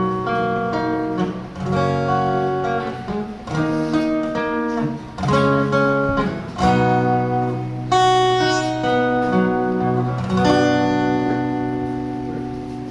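Live guitar music with no singing: an acoustic guitar strums chords and lets them ring, with electric guitars playing along. The playing grows quieter near the end.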